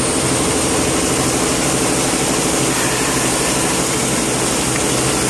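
Brush-filament cutting machine running: a steady, loud mechanical hum with a fast, even chatter.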